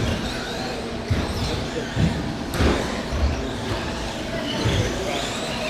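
Electric radio-controlled Traxxas Slash short-course trucks racing on a carpet track: motor whines that rise and fall with the throttle over a steady bed of noise, with a few dull thumps.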